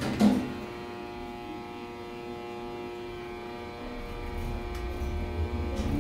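Aurora Lifts passenger lift car travelling between floors: a brief thump just after the start, then the steady electric hum of the lift drive, several tones held level, with a low rumble building near the end.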